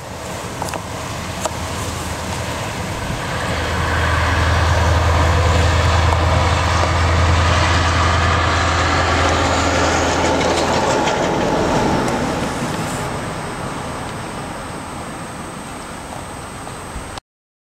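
Scania R580 timber truck's V8 diesel engine running as the truck drives by, a deep steady drone. It grows louder to a peak about six seconds in, then fades.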